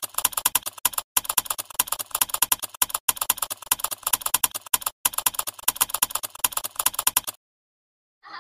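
Computer keyboard typing sound effect: a fast, continuous run of key clicks with brief pauses about one, three and five seconds in, stopping abruptly about seven seconds in.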